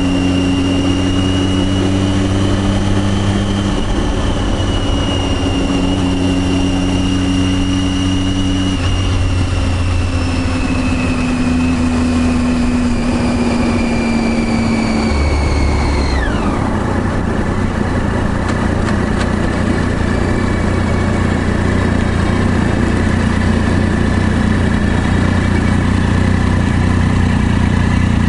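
Triumph Daytona 675R three-cylinder engine running on the move, its note stepping up and down in pitch. About sixteen seconds in, a high whine drops sharply, and the engine then settles into a steadier lower note.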